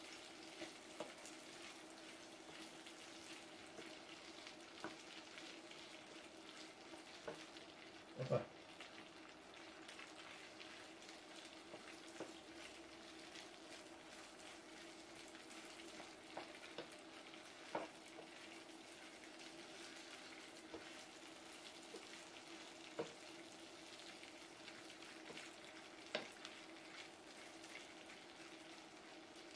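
Chicken pieces frying faintly in a pan while being stirred with a wooden spoon, with a few light knocks of the spoon against the pan. A steady low hum runs underneath.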